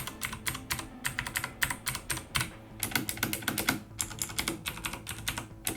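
Keys of a Corsair K70 RGB MK.2 mechanical keyboard with Cherry MX Blue switches pressed one after another in quick runs, each key giving a sharp click, with short pauses about two and a half and four seconds in.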